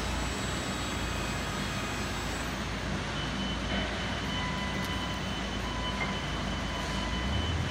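Forklift running steadily while its hydraulic big bag clamp opens to release a bulk bag and the truck backs away; a steady whine comes in about three seconds in.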